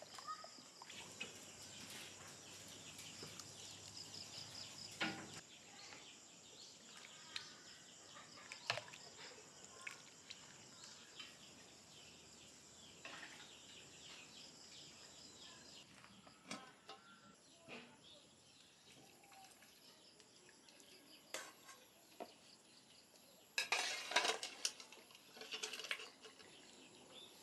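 Dishes and cutlery clinking and knocking now and then, with a busier run of clatter near the end.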